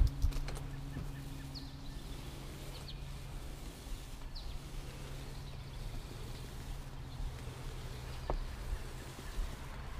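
Outdoor ambience: a steady low hum with a few faint, short bird chirps in the first half, and a single light click late on.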